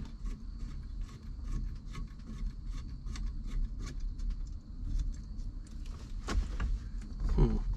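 Light metallic clicking and rattling of steering-wheel hardware being handled and fitted, with a short squeak about six seconds in and another near the end.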